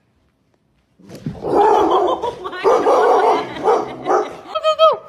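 A dog barking repeatedly and excitedly, starting about a second in, ending in a short high whine that drops in pitch.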